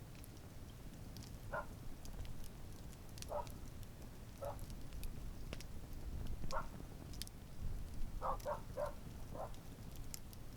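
Outdoor wood campfire burning, with a low steady rumble and scattered sharp crackles and pops. About eight short squeaks come at uneven intervals, three in quick succession near the end.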